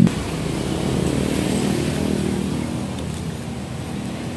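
Street traffic: a passing motor vehicle's engine, loud at first and fading gradually away.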